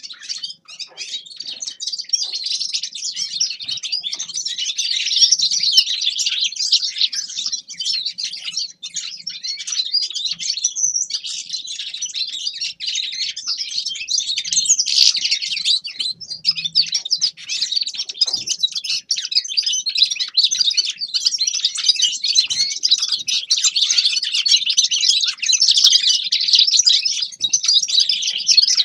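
A finch singing a long, fast, twittering song of rapid chirps and trills, barely pausing, with only a brief break about eleven seconds in.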